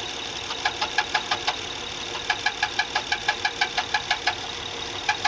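Running engine with a rapid, regular metallic knock, about five a second, that comes and goes. The knock is taken for something rotating, possibly a bearing or a roller, and seems to come from low down on the engine.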